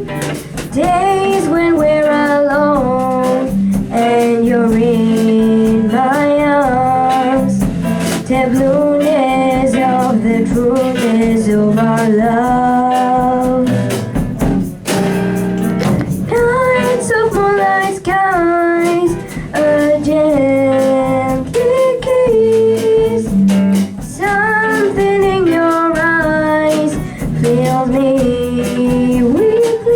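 A woman singing a song with guitar accompaniment, her voice moving between held, sliding notes over plucked chords.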